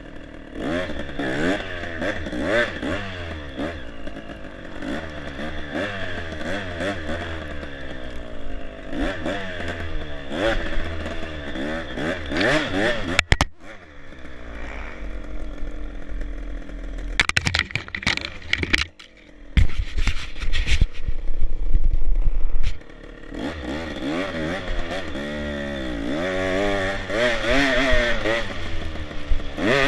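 Dirt bike engine revving up and down as it is ridden, its pitch rising and falling with each twist of the throttle. Just past the middle the engine note drops out briefly, then several seconds of loud low rumbling noise cover it before the revving returns.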